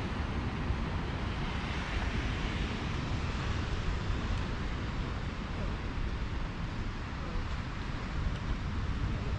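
Wind buffeting the microphone with a low rumble over a steady hiss of ocean surf.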